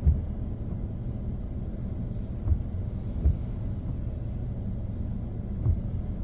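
Steady low rumble heard inside a car's cabin in the rain, with a few soft thumps scattered through it.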